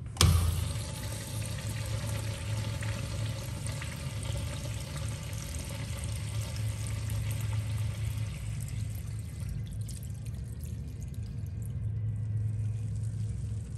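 A manual lever flush valve on an American Standard Washbrook urinal is flushed: a sharp click as the handle is pushed, then water rushing through the bowl, easing off about ten seconds in. A steady low hum runs underneath.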